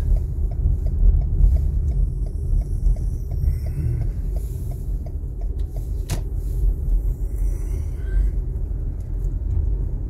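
Steady low road rumble inside a moving car, from the tyres and engine while driving, with one sharp click about six seconds in.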